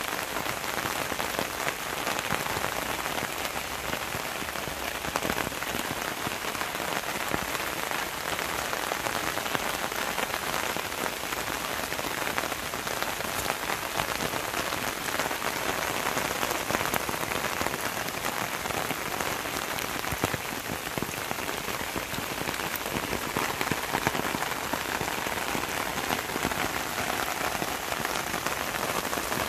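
Steady rain falling on garden leaves and grass: a dense, even patter of many small droplet ticks.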